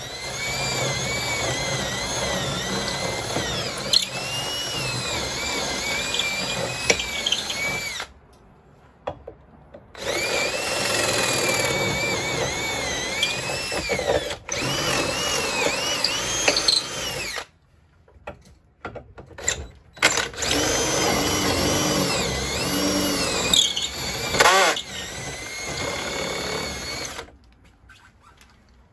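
Cordless drill boring a 13/32-inch bit through a wooden roof rafter. It runs in three long stretches of several seconds each, with short pauses between. The motor's whine wavers up and down in pitch as the bit bites.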